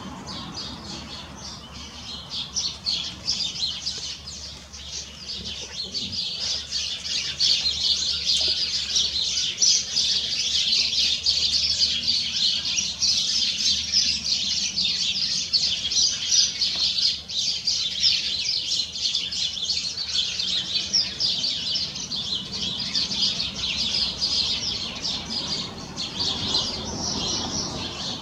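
Grey squirrel gnawing on a bone, its incisors scraping it in a rapid, continuous high-pitched rasp that grows louder after about six seconds.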